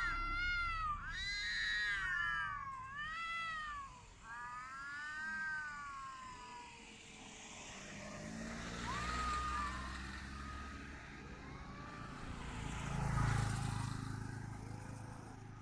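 Domestic cat yowling its mating-season courtship call: long, wavering calls that swell up and fall away several times in the first few seconds, then shorter, fainter calls. A low rumble rises under the second half.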